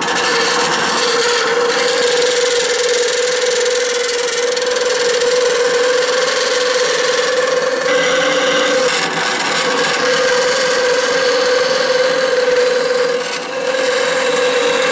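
Craftsman 15-inch metal-cutting bandsaw running slow, at 150 feet per minute, its half-inch bimetal blade sawing through 1/8-inch mild steel plate: a steady rasping cut over a constant whine.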